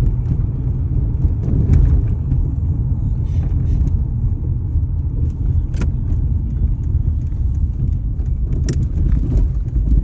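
Low, steady engine and road rumble heard from inside the cabin of a 2004 Toyota Corolla on the move, with a few short clicks or rattles about halfway through and near the end. The engine is shaking and knocking under way, which the driver can only describe as almost like it's knocking.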